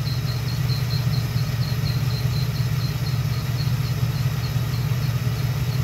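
LT1 V8 idling, with a high squeak repeating about five times a second from the freewheeling mechanical fan; the squeak fades out near the end. The owner blames a faulty new fan clutch: the squeak lasts until the clutch engages.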